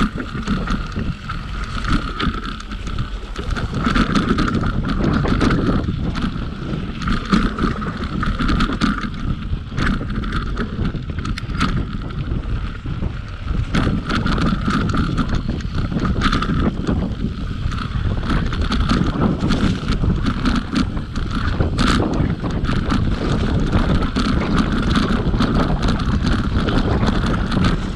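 Mountain bike rolling down a dry dirt trail covered in fallen leaves: steady wind buffeting on the microphone, tyres crunching over leaves and dirt, and frequent sharp clicks and knocks as the bike rattles over bumps, with an on-and-off high buzz.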